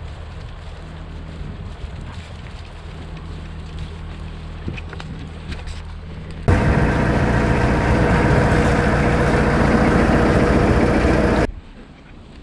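A narrowboat's engine runs steadily at a distance as a low hum. About halfway through, a loud rushing noise cuts in suddenly, lasts about five seconds and stops just as suddenly.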